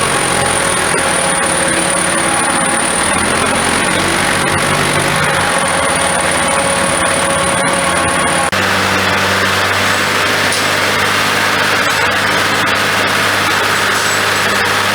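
Tractor engine running steadily while working the feed mixer, with a thin high whine over it. About eight and a half seconds in, the sound cuts abruptly to a second stretch of steady engine running, lower and without the whine.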